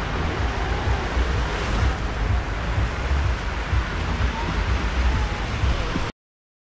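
Small waves washing onto a sandy beach, a steady surf hiss, with wind buffeting the microphone in low gusts. It cuts off abruptly to silence near the end.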